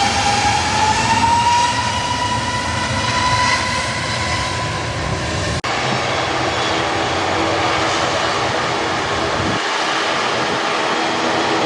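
Jet airliner engines, a whine rising slowly in pitch over a loud, even roar. About halfway through the sound breaks off abruptly and is followed by steadier engine noise without the whine.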